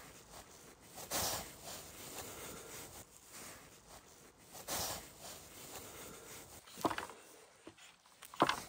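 Hands rustling as they pull black cord tight around peeled wooden poles while tying lashings. This is followed by two sharp knocks near the end as a hatchet blade strikes the end of a pole.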